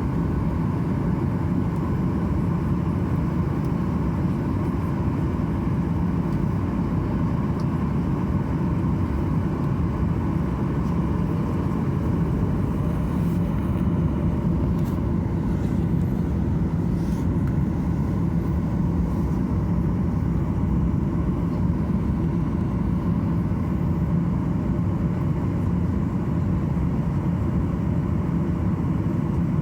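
Steady low rumble of a Boeing 737-800's CFM56-7B jet engines and airflow, heard from inside the cabin, holding constant with no spool-up or change.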